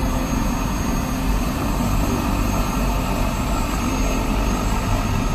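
Steady low mechanical rumble of vehicle noise heard from inside a car's cabin.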